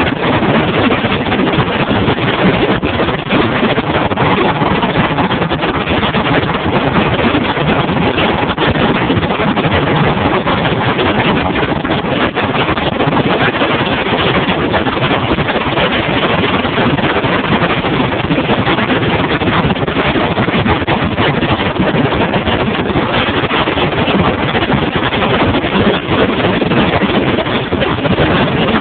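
Outboard motor driving a bass boat at speed over open water: a steady, loud rush of engine noise mixed with water and spray, with no change in pace.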